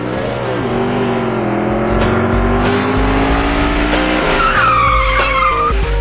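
Car chase sound effect: a car engine revving, its pitch rising and falling, then tyres squealing about four and a half seconds in. Music starts near the end.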